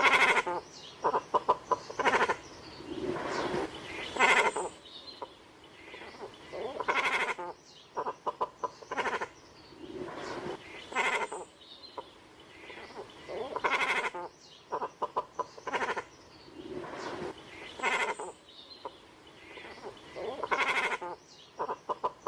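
Great cormorants calling: repeated harsh, bleat-like calls every couple of seconds, with short runs of rapid clicks between some of them.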